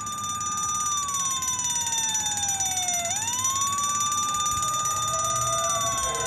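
Electronic wail siren of a toy fire engine. A single tone holds, glides slowly down, jumps back up about three seconds in, holds again and starts to fall near the end.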